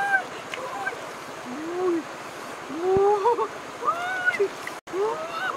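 A woman's short, wordless cries and laughs, each rising and falling in pitch, over rushing shallow river water, with splashing as she grabs a fish by hand.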